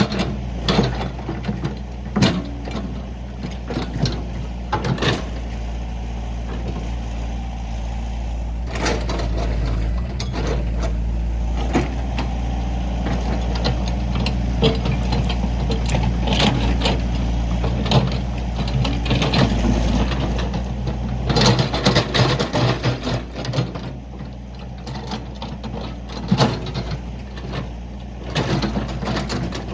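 Diesel excavator engine running steadily, with repeated metallic clanks and knocks from the machine working, busiest about three-quarters of the way through.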